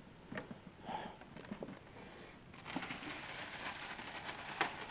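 Light handling clicks, then, from about halfway through, a steady crinkling of plastic or paper packaging being handled while a new table lamp is unwrapped.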